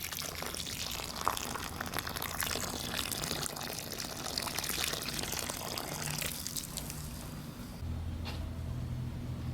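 Water pouring and splashing into a freshly dug post hole in dry sandy soil, fading out about three-quarters of the way through. A low steady hum follows near the end.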